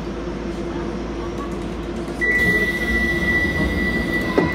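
Docklands Light Railway train standing at a platform with a steady low hum. About two seconds in, a steady high door-closing warning tone sounds, and the doors shut with a sharp knock near the end.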